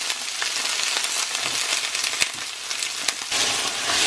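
Freshly added snap peas and sliced bell peppers sizzling in hot oil in a stainless steel pan over medium-high heat: a steady hiss with a few sharp crackles. Near the end a spatula begins stirring and scraping the vegetables around the pan.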